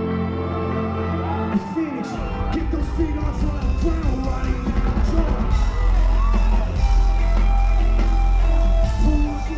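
Live rock music played loud in a concert hall: sustained chords, then heavy bass and drums kick in about two seconds in, with voices yelling and singing over the band.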